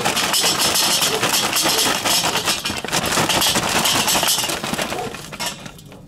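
Charcoal briquettes poured from a paper bag, clattering onto one another and onto the steel charcoal grate inside a Weber kettle grill: a dense rattling pour that thins out and stops about five seconds in.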